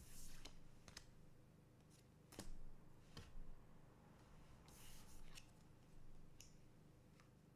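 Faint handling of trading cards and their packs: soft rustles and about half a dozen light clicks and taps, spread irregularly.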